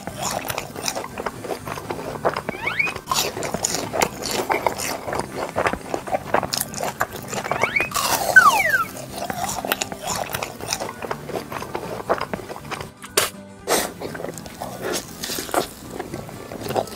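Crunching bites and chewing on a hamburger, many short crunches in quick succession. Brief sliding pitched sounds come about 3 seconds in and again a little past the middle.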